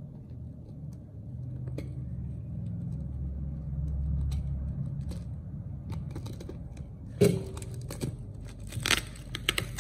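Clear plastic shrink wrap being slit with a snap-off utility knife and peeled from a cardboard box. At first there is low rubbing and handling; in the last few seconds come crinkling and sharp crackles, the loudest a single snap about seven seconds in.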